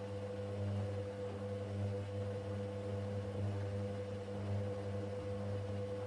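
Candy Grando GODF800 washing machine running with a steady low hum and a fainter, higher steady tone.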